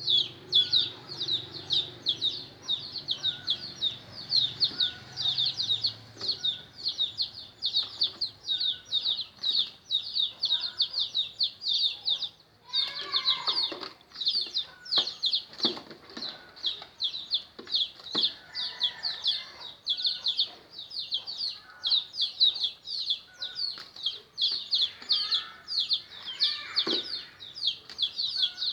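A brood of chicks peeping rapidly and without pause, with a hen clucking among them and calling louder twice, about halfway through and near the end.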